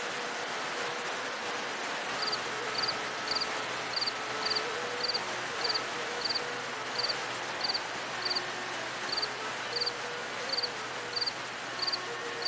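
Steady hiss of rain with a faint melody underneath; from about two seconds in, a cricket chirps high and regularly, each chirp a quick little trill, a little under twice a second.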